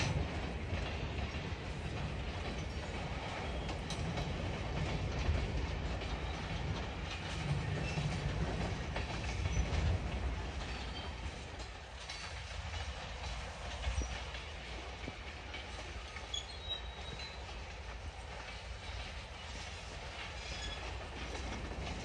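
Freight cars, mostly tank cars, rolling past on steel wheels: a steady low rumble with wheels clicking over rail joints and a few brief, faint wheel squeals. The rumble eases about halfway through.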